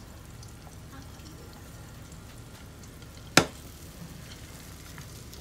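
Duck egg frying in butter in a nonstick pan, sizzling steadily over a low hum. A single sharp click about three and a half seconds in.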